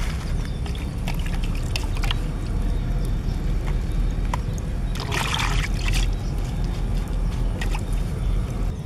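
Hands handling freshly washed lettuce and chillies: water dripping and splashing from the vegetables, with scattered small clicks and a louder rustle about five seconds in, over a steady low rumble.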